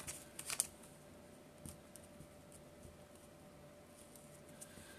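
Faint rustling and a few light clicks of paper and card being handled and slid across a table, the sharpest about half a second in, over a faint steady hum.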